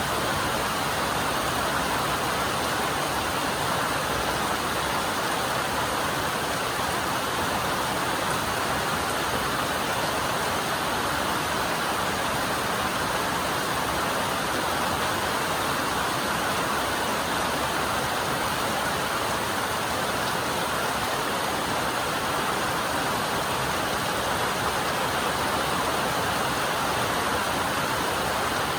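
Rainstorm on a metal roof: a steady, dense hiss of rain with no single drops standing out.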